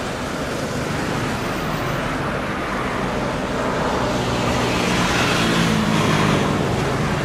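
Airbus A320-family airliner's jet engines running during the landing rollout, a steady broad noise with a low hum underneath that grows louder a little past midway.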